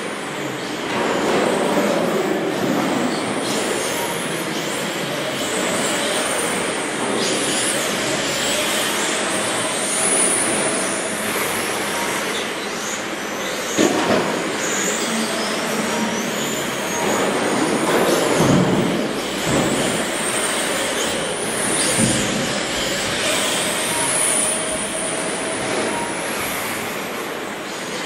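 Several radio-controlled race trucks' motors running on a track in a large echoing hall, their pitch rising and falling again and again as they accelerate and brake through the corners. A sharp knock about fourteen seconds in.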